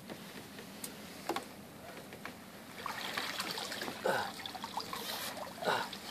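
Water trickling and splashing around a wet landing net holding a freshly caught carp, with two sharp knocks in the first second and a half and a louder stretch of splashing and rustling in the middle.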